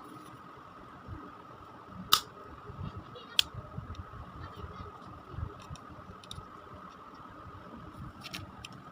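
Handling noise from small hard objects: two sharp clicks a little over a second apart, then scattered lighter clicks and a quick double click near the end, over a steady faint high hum and low rumble.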